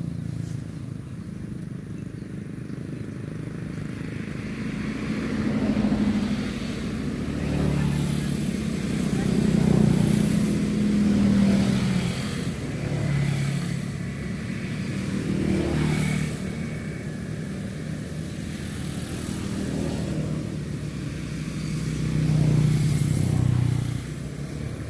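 Motorcycles and cars passing one after another on a roadside road, each swelling and fading over a few seconds, over a steady outdoor background.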